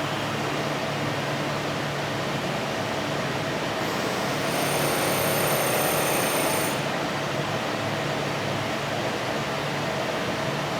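Steady hum of running machining equipment. About four seconds in it grows louder for about three seconds, with a high thin whine on top, then settles back.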